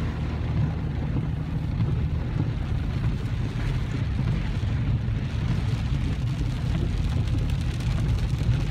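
Steady road noise heard from inside a moving car on rain-soaked pavement: a constant low rumble of engine and tyres with a fainter hiss of wet spray and rain.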